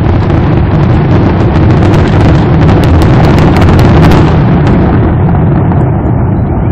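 Fireworks finale barrage (traca): a loud, dense, continuous din of firecracker and shell bangs. Rapid sharp cracks are packed thickest in the middle, then thin out near the end.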